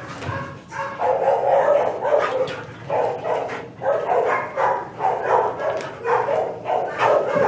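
A large dog giving an excited series of short barks and yips, about two a second, starting about a second in.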